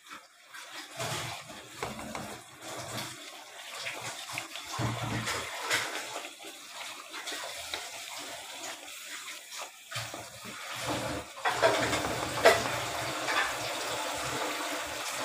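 Thick yogurt-based chicken gravy bubbling and spluttering in a pot as its water is cooked off, a steady hiss with occasional sharp pops.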